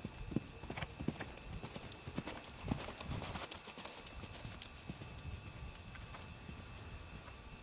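Hoofbeats of a pony cantering on a sand arena's footing, loudest as it passes close by about three seconds in, then fading as it moves away.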